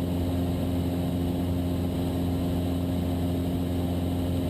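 Steady drone of a Cessna 172's piston engine and propeller running in flight, an even, unchanging hum.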